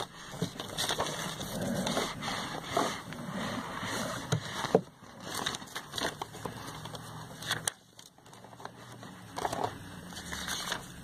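Glossy catalogue pages being handled and turned: irregular paper rustling with scattered clicks and taps, one sharper tap about five seconds in.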